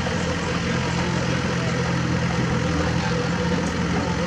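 Diesel engine of a small Komatsu bulldozer running steadily as the machine pushes a pile of dirt with its blade.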